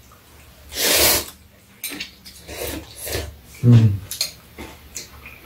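Noodles being slurped from a bowl, one loud slurp about a second in and smaller slurps after, with light clicks of chopsticks against bowls and a brief voiced grunt near four seconds.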